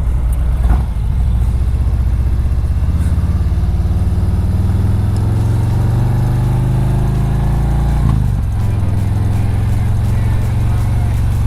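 Harley-Davidson Road Glide's V-twin engine pulling on the highway, heard through a helmet-mounted microphone. Its pitch climbs for several seconds, drops at a gear change about eight seconds in, then pulls steadily again.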